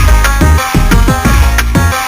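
Electronic dance music with a fast, driving beat and deep kick drums that drop in pitch.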